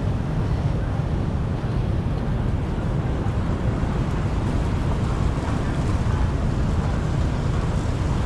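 Steady rush of floodwater flowing through a street drain, mixed with a low wind rumble on the microphone.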